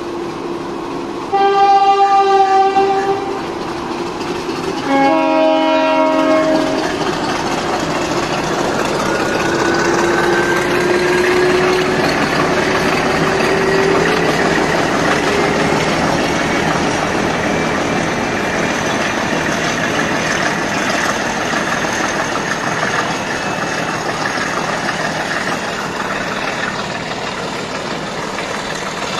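Diesel train horn sounding twice, the two blasts on different chords. Then a train moves past close by, its engine note slowly rising as it gets under way, over a steady rumble and wheel clatter.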